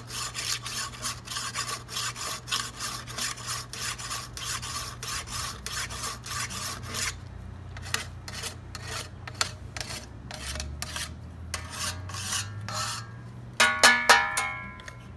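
Handheld knife sharpener rasping along the rim of a metal frying pan in quick strokes, about four or five a second, thinning to scattered strokes about halfway through. Near the end, loud music comes in.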